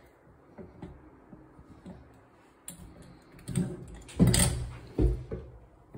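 Single-lever kitchen faucet handle being worked on a stainless steel sink: a few light clicks, then louder clunks about four and five seconds in. No water runs, because the supply is shut off.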